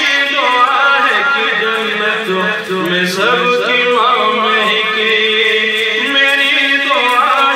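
A man singing a naat, an Urdu devotional poem, in long, drawn-out notes whose pitch wavers and glides.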